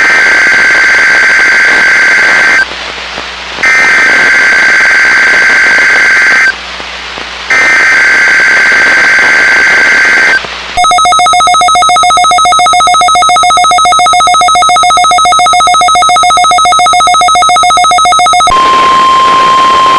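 NOAA Weather Radio emergency alert signals: three bursts of buzzy digital SAME header data, each about three seconds with a second's pause between, then a harsh, rapidly pulsing alarm tone for about eight seconds, and from about eighteen seconds in a steady single-pitch warning tone.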